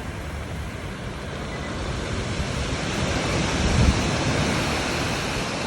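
Black Sea waves washing on the shore, the surf noise swelling to a peak about four seconds in and then easing, with wind rumbling on the microphone.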